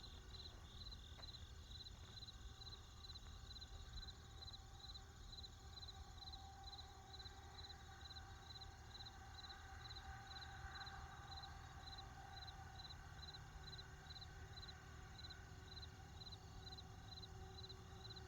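Crickets chirping in a steady, even rhythm of about three chirps a second, over a faint low rumble of distant traffic.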